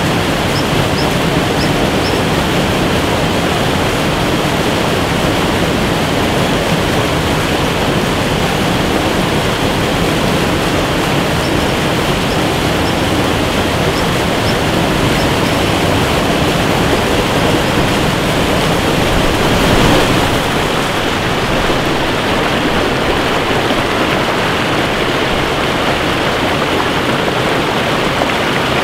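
Steady rush of a waterfall and fast-flowing river water, with a few faint, short, high chirps near the start and again about halfway through.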